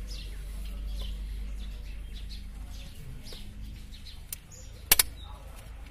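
A sharp double click near the end as a spring clip on a car's air filter housing is snapped open by hand, with a smaller click just before it. Under it runs a low steady hum, and birds chirp faintly.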